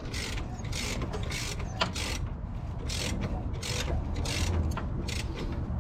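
Socket ratchet clicking steadily, about three clicks a second, as the engine is turned over by hand to check the cam timing.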